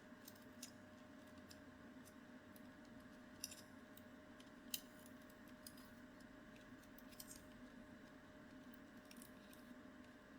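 Faint scattered clicks and taps of small plastic mouse parts being handled during reassembly, over a steady low room hum; two sharper clicks come about three and a half and nearly five seconds in.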